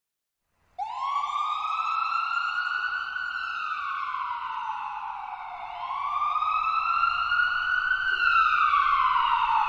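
Police siren wailing: a tone that starts suddenly about a second in, climbs slowly, sinks back down, then climbs and falls again.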